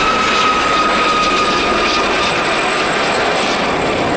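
Westland Gazelle helicopter flying past: a steady high whine over a dense rushing noise, the whine sinking slightly in pitch.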